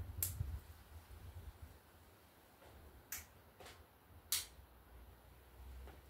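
Three crisp snaps of green bean pods being picked off the vine, one near the start and two more about three and four seconds in, over a faint low rumble.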